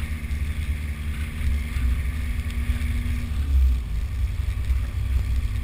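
Low, uneven rumble of a vehicle driving along a wet road, heard from the moving vehicle, with a steady hiss over it.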